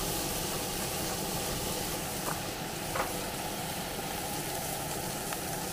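Beans and vegetables sizzling as they fry in a pan on a portable gas stove and are stirred, with two light clicks around the middle.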